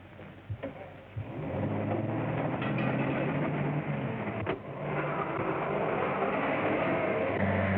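A motor vehicle's engine comes in about a second and a half in and runs steadily, with a sharp click about four and a half seconds in.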